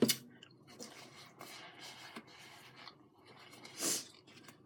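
Small rustles and clicks of handling and eating at a table, with one louder, brief rustling crunch about four seconds in.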